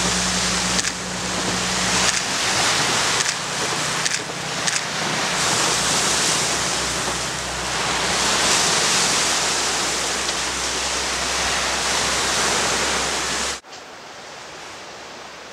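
Surf on a rocky shore and wind on the microphone make a loud, steady rush that swells and eases. The low hum of a diesel railcar's engine fades away in the first two seconds. About 13½ seconds in the sound cuts suddenly to a much quieter steady hiss.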